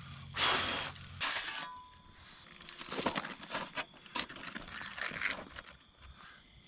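Aluminium foil crinkling and rustling as a foil-wrapped pork roast, just taken out of campfire coals, is torn open by hand, with a louder rustling scrape about half a second in.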